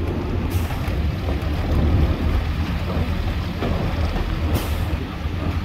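Heritage first-generation diesel multiple unit under way, its underfloor diesel engine and wheels on the track making a steady low rumble, heard from an open window with wind on the microphone. Two brief hisses cut through, about half a second in and again near the end.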